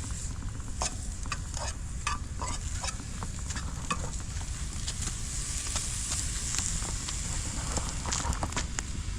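Chicken sizzling on a charcoal grill, a steady hiss with scattered short clicks and crackles, over a steady low rumble.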